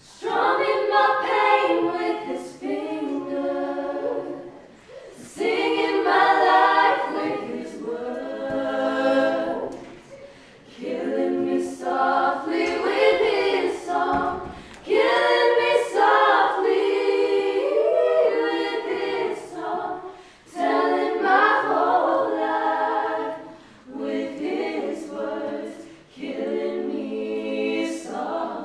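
A cappella vocal group singing in close harmony, with no instruments, in phrases of a few seconds separated by short breaths.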